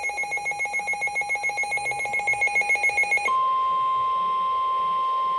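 Emergency alert tones for a tornado warning: a fast electronic pulsing alarm with several pitches, then, a little over three seconds in, a single steady tone near 1 kHz, the warning alarm tone that comes before the spoken alert.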